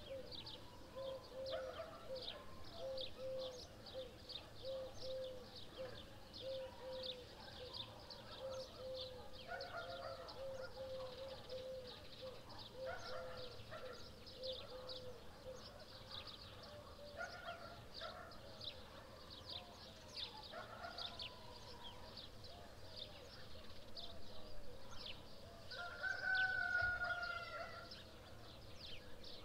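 Outdoor birdsong: small birds chirping busily throughout, with another bird repeating a low note over and over in the first half. Near the end a rooster crows, the loudest sound.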